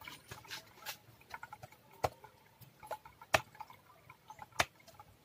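Plastic clicks and ticks of an Asus A43S laptop keyboard being pried out, its retaining latches pushed back with a thin tool; three sharper clicks stand out, about two, three and a half and four and a half seconds in.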